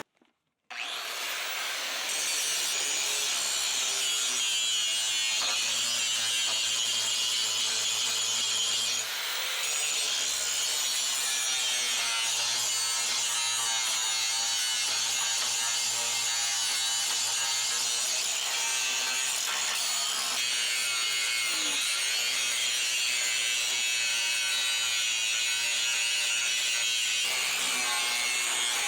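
Power grinder grinding out and cleaning up metal on a 1976 Ford F100, a steady rasping hiss that eases briefly about nine seconds in and then runs on.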